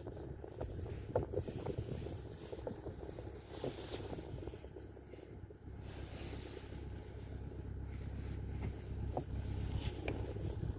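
Low steady rumble of a stopped vehicle's engine running, with scattered small clicks and rattles.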